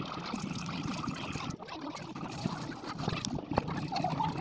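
Homemade glue slime being squished and stretched between the hands: wet squishing with many small sticky clicks.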